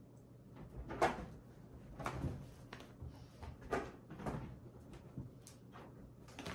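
A cat jumping and landing on a bed's soft bedding while chasing a wand toy, heard as a series of short, irregular thumps and rustles.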